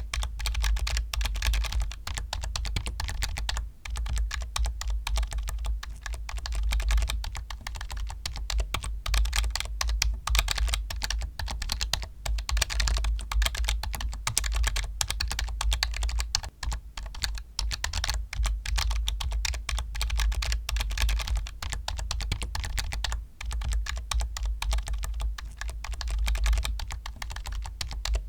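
Fast, continuous typing on a computer keyboard: a dense run of key clicks with deep thocking bottom-outs, pausing briefly about four, sixteen and twenty-three seconds in.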